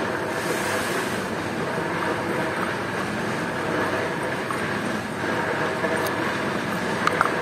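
Loud, steady mechanical rumble in the background throughout. About seven seconds in come a couple of small metallic clicks as a wing nut is turned onto a bolt in a wooden block.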